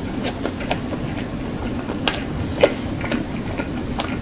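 Close-miked chewing of a mouthful of hamburger: irregular wet mouth clicks and smacks, the loudest about two and a half seconds in.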